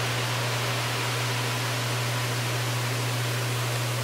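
Baking soda and vinegar fizzing in a full bathtub, a steady even hiss like rushing water, over a constant low hum.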